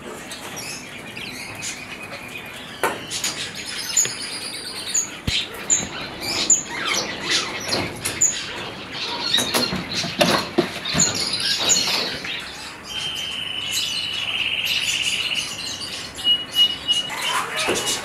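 Small aviary birds chirping and calling in quick, high notes, with one long buzzing trill about three-quarters of the way through. Light clicks and rattles come from chicken-wire mesh being handled and fastened overhead.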